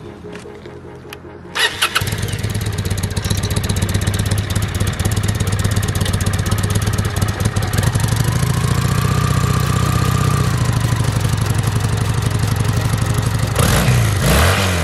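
Kawasaki VN800 bobber's V-twin engine started about one and a half seconds in, catching at once and then running with a steady, rhythmic beat; it gets louder near the end.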